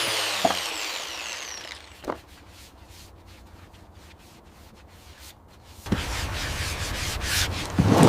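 Wood being worked: a power tool's whine falls away and fades over the first two seconds, a few light taps follow in a quiet stretch, and from about six seconds in there is rubbing and scraping on the wooden carving with many sharp clicks.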